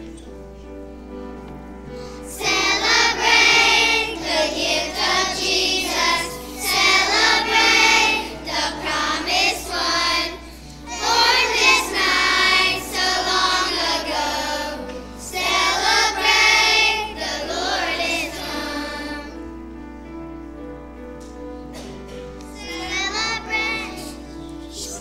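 Children's choir singing a song in phrases over an instrumental accompaniment. The voices drop out for a few seconds near the end while the accompaniment carries on, then come back briefly.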